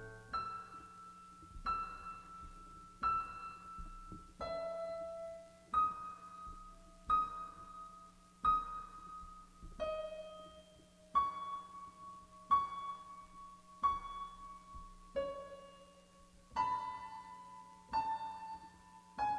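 Quiet piano notes, one struck about every second and a half, each ringing out and fading, the melody stepping slowly downward, over a faint steady low hum.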